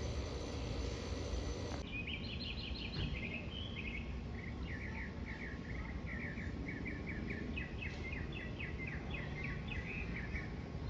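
A songbird singing a long run of quick, repeated chirping notes, starting about two seconds in, over a steady low outdoor rumble.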